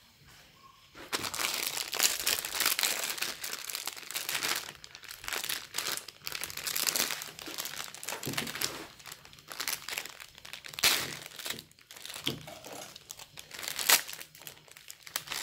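Clear plastic packaging crinkling in irregular bursts as hands handle a packet of cake bars, starting about a second in.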